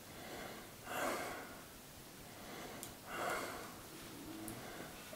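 Two soft, breathy exhalations or whispered sounds from a man lying at rest, one about a second in and one about three seconds in.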